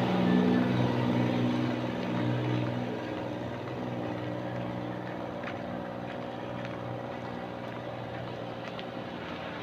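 A motor vehicle's engine running steadily, fading away over the first few seconds as it moves off, leaving a low steady background.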